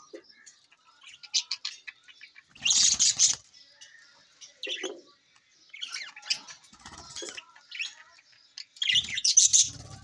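A flock of budgerigars chirping and chattering in scattered bursts, with wing flutters among the louder bursts about three seconds in and near the end.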